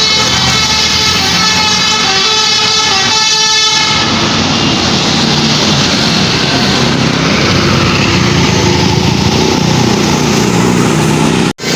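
Basuri musical bus horn playing a tune in held notes that step from pitch to pitch. It pauses into a rougher stretch midway, then sounds again. The sound drops out abruptly for an instant near the end.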